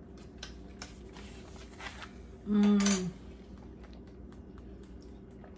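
Faint clicks and taps of plastic spoons and tuna packets handled at a table. About two and a half seconds in, a person gives one short, steady-pitched hum, the loudest sound here.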